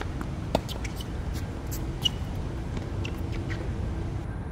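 Tennis ball hits and bounces during a rally on a hard court: a few sharp pops, the clearest about half a second and two seconds in, over a steady low rumble.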